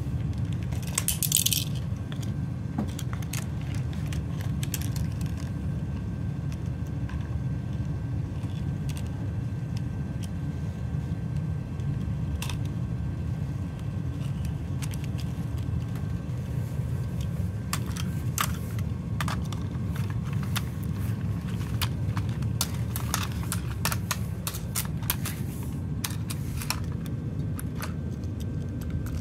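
Plastic Hot Wheels track pieces and toys being handled, giving scattered clicks and rattles, a cluster about a second in and more in the second half, over a steady low rumble.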